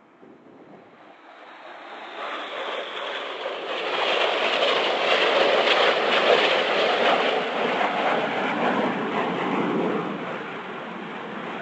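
Jet engine noise from a formation of four BAE Hawk T1 jets flying past. It starts faint, builds over the first few seconds to a loud, steady noise, and eases a little near the end.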